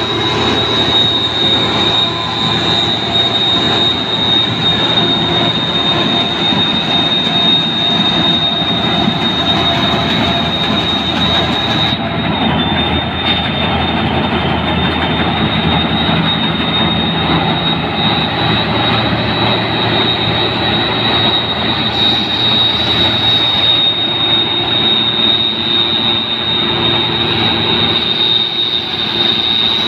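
New Holland 8060 combine harvester running as it works through a rice field: a loud steady machine drone with a high-pitched whine over it.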